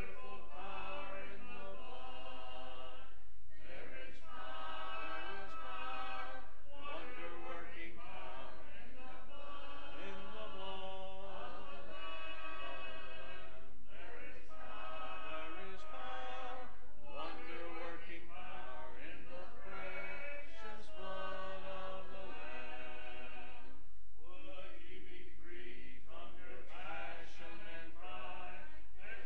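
Congregation singing an invitation hymn a cappella, many voices together without instruments, in phrases broken by short pauses every few seconds.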